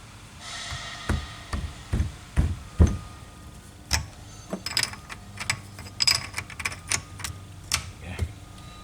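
Metal parts and tools clinking and knocking as the injection pump coupler is handled and fitted. A few heavier knocks come first, then a run of sharper clicks.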